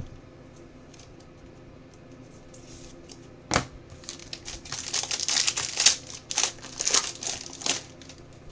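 Crinkling and crackling of plastic card packaging being handled and pulled apart. There is a sharp crackle about three and a half seconds in, then a busy run of crinkling for about three seconds.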